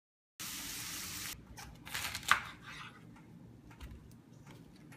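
A knife cutting through a raw head of cauliflower on a wooden cutting board. It opens with about a second of hiss-like noise, then crisp cracks and snaps, the loudest a single sharp crack a little past two seconds in, and then faint scattered ticks.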